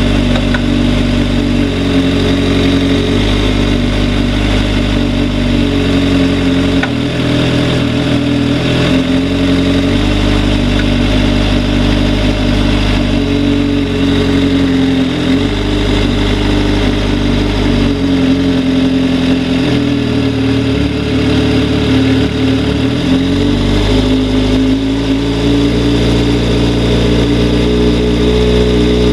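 2004 Suzuki GSX-R600 inline-four engine running steadily, its pitch shifting in steps every few seconds; the engine is knocking.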